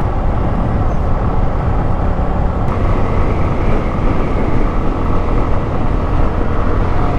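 Suzuki Gixxer motorcycle riding at steady speed: a constant engine drone under heavy wind rush on the microphone.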